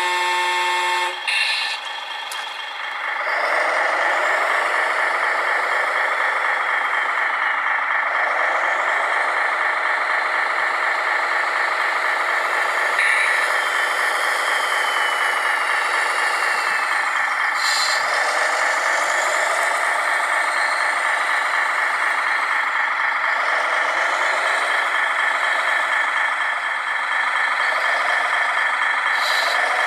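Radio-controlled model construction machine running, a steady mechanical whine with several layered tones whose pitch rises and falls as the motors change speed. It opens with a short steady tone lasting about a second, and the whine sets in about three seconds in.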